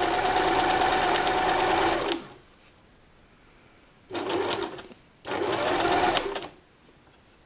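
Electric sewing machine stitching a straight seam, its needle going in a fast, even rhythm over the motor's whine. It runs about two seconds, stops, then sews two shorter bursts of about a second each with a pause between.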